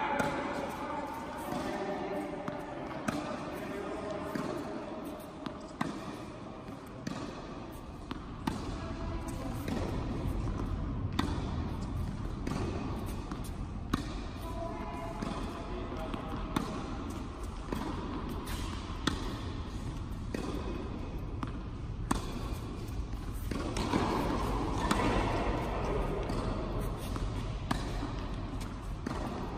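Tennis rally on a hard court: rackets striking the ball and the ball bouncing, a string of sharp pops at irregular intervals of about a second or so.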